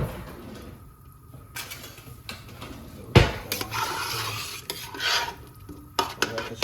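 Pots and cooking utensils clattering: scattered sharp knocks of metal kitchenware, the loudest a single knock a little after three seconds, followed by a couple of seconds of continuous clatter.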